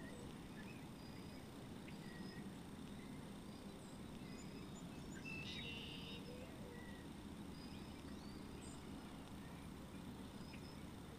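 Faint outdoor ambience: a steady low hum with scattered short, high bird chirps, and one louder call about five and a half seconds in.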